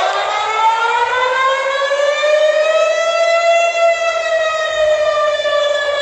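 Civil defense siren sounding one long wail. Its pitch climbs steadily for about the first three seconds, then levels off and sags slightly.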